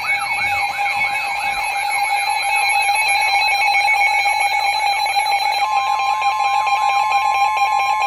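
Midland NOAA weather radio sounding its alert for a High Wind Warning: a loud, siren-like warble sweeping up and down about three times a second over steady electronic tones. About two-thirds of the way through, a second steady tone joins.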